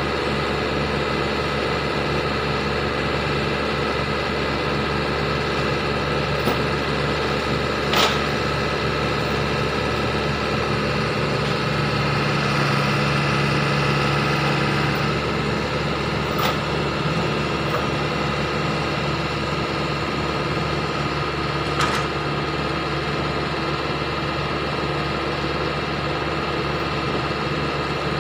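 Heavy diesel engine idling steadily, its note rising slightly for a few seconds about twelve seconds in, with a few short sharp clicks or knocks scattered through.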